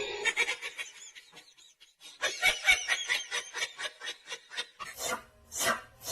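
Laughter in quick repeated pulses, fading out, then starting up again louder, with a few separate bursts near the end.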